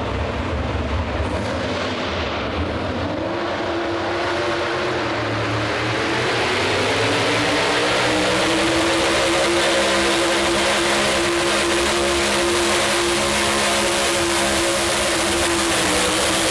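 Outlaw 4x4 pulling truck's engine at full throttle hauling a weight sled: a low rumble that climbs in pitch over the first few seconds as the truck launches, then holds high and steady for the rest of the pull.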